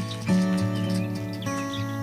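Background music: held instrumental notes that change pitch about every half second.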